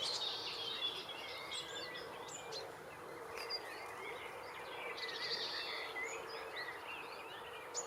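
Several songbirds chirping and trilling in overlapping short phrases over a steady background rush, with a faint steady hum underneath.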